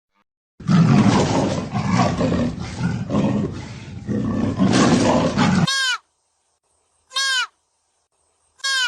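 An animal's loud, rough, noisy call lasting about five seconds and stopping abruptly, followed by three short whistle-like calls that fall in pitch, about a second and a half apart.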